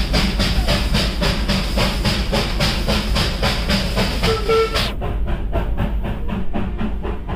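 Darjeeling Himalayan Railway B-class steam locomotive working at close range: a rapid, even beat of exhaust chuffs over a steady steam hiss. A brief pitched tone sounds about four and a half seconds in.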